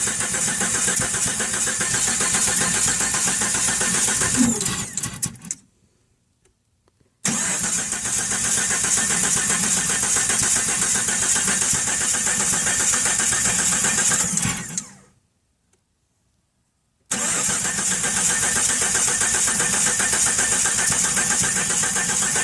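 1997 Jeep Cherokee XJ's 4.0-litre straight-six cranking on the starter without catching, in three long spells of several seconds each with short silent gaps between. It is a crank-but-no-start that the owner traced to low compression in cylinder 3.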